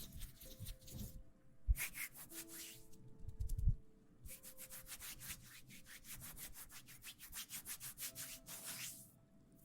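Close-miked ASMR rubbing and scratching: quick runs of scratchy strokes, several a second, with a short break early on and a couple of dull bumps before a longer steady run.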